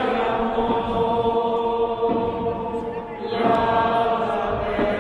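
Urawa Reds football supporters singing a chant together, a great mass of voices holding long notes. A short breath about three seconds in, then the next phrase begins.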